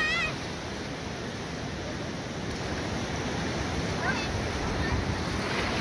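Shallow surf washing in on a sandy beach, a steady rush. Brief high children's shouts come at the start and again about four seconds in.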